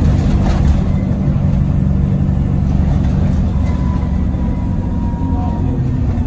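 Alexander Dennis Enviro400 double-decker bus heard from inside the passenger saloon, its engine and drivetrain giving a steady deep drone as it drives along. A faint high whine comes in for about two seconds past the middle.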